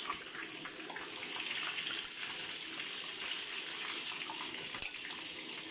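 Hot oil sizzling steadily around two batter-coated fish fillets shallow-frying in a pan.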